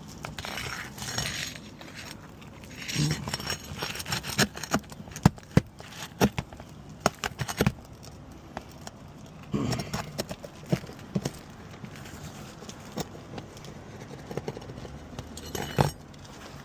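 Metal shingle-removal tool (roof snake) scraping under asphalt shingles and knocking against roofing nails as they are worked loose: short scraping stretches and an irregular run of sharp clicks and taps, with one louder knock near the end.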